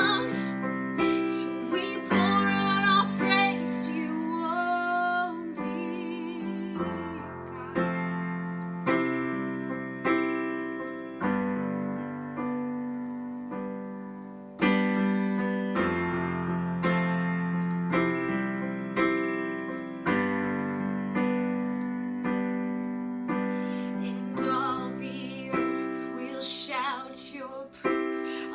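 Piano-style keyboard playing slow struck chords, with a woman's singing voice coming in for a few phrases early on and again near the end.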